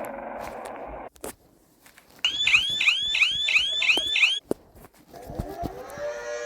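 A series of emergency alarm tones. A hazy noise cuts off about a second in. Then a loud electronic alarm whoops in quick rising sweeps, about two a second, for two seconds. Near the end a siren winds up, rising in pitch into a steady chord of tones.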